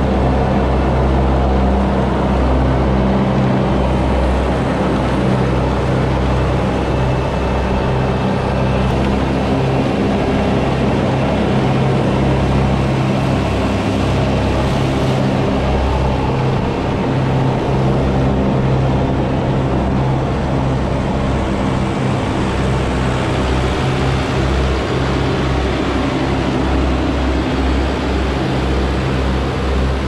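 Tractor engine running steadily under load while pulling and driving a multi-deck rotary mower through grass.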